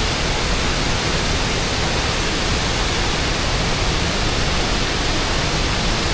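Steady rushing of the Krka waterfalls, an even roar of falling water with no change.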